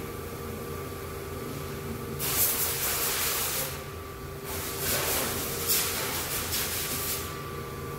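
Two bursts of loud hissing from a jet of pressurised gas, the first about a second and a half long and the second nearly three seconds, over a steady machine hum.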